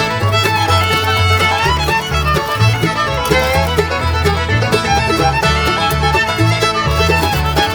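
Background music: a fiddle tune over a steady, pulsing bass line, in a bluegrass or country style.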